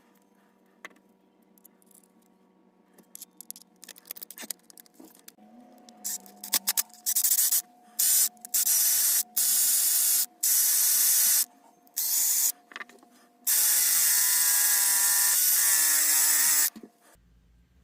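A few light handling clicks, then a spinning drill-mounted abrasive polishing pad rubbing in repeated loud bursts of hiss, each start and stop sudden. The longest burst, about three seconds near the end, has the whine of the motor under it.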